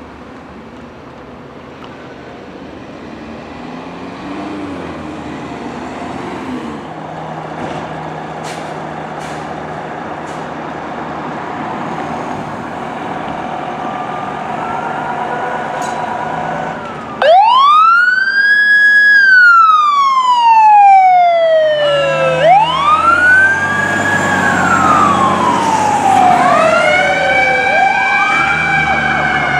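2004 KME Excel fire engine's diesel engine running and growing louder as the rig pulls out. About seventeen seconds in, its siren starts: a wail that climbs quickly, holds, then falls slowly, repeating several times, with a second, lower siren tone overlapping near the end.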